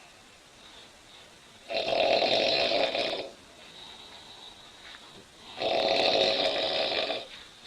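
A woman snoring loudly in her sleep: two long snores about four seconds apart, each lasting about a second and a half.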